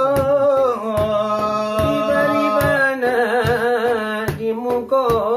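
Selawat dulang: two men sing long, drawn-out lines that waver in pitch, while beating large brass trays with their fingers in sharp taps.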